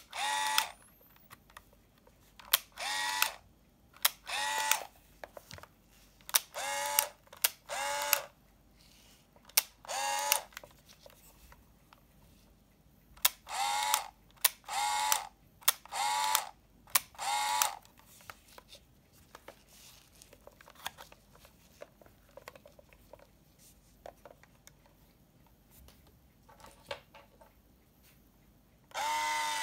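Premier Focus Free PC-640 35mm point-and-shoot film camera firing and winding its film by motor: about ten short whirs, each under a second, with light handling clicks between them. About a second before the end a longer, steady motor whir starts, the film being rewound after the recessed rewind button is pressed with a toothpick.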